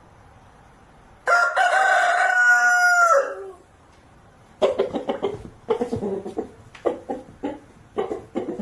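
Rooster crowing once, one long loud call that drops in pitch as it ends, followed after a short pause by a run of quick, irregular clucks.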